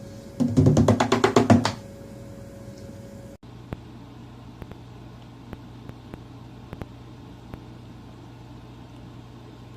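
A fast run of loud knocks, about ten a second for just over a second, followed after a cut by a steady low hum with faint scattered clicks.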